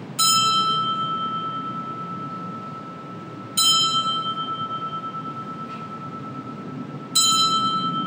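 Altar bell struck three times, about three and a half seconds apart, each strike ringing on in a steady tone that slowly fades: rung at the elevation of the chalice during the consecration at Mass.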